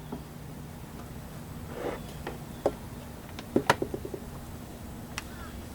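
Scattered light clicks and taps of plastic being handled on a car's rear door trim panel, with a quick run of several clicks about three and a half seconds in, over a faint steady low hum.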